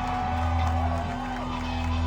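Live rock concert music with a steady, heavy bass and held sustained notes, and crowd voices shouting and whooping over it.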